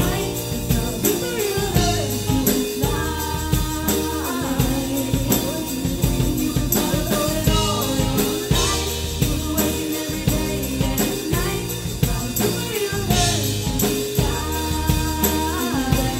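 Live pop band playing: women singing over keyboard, electric bass and drum kit keeping a steady beat.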